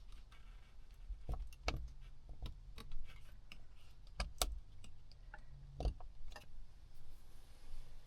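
Small sharp clicks and taps of a micro SD card being handled and worked into the plastic card slot of a factory dash cam, scattered irregularly about a second apart, over a faint steady low hum.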